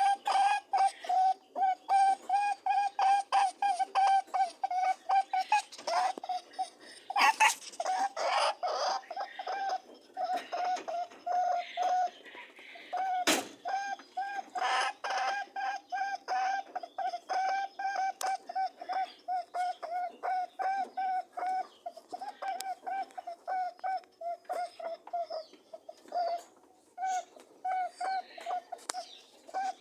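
Rabbit honking during courtship and mating: a long, rapid series of short pitched honks, about three a second, steady in pitch. A few scuffling noises come about a quarter of the way in, and a sharp click near the middle.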